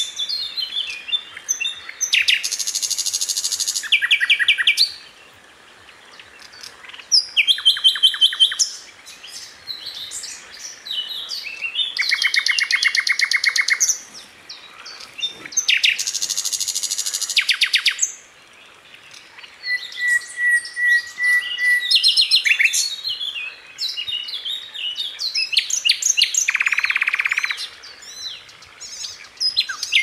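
Sikatan londo songbird singing: repeated phrases of rapid, high-pitched chattering trills, each a second or few long, with short pauses between, and a brief steady whistle about two-thirds through.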